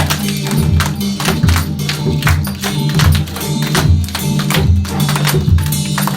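Music with a steady beat: a repeating bass line under regular percussion hits.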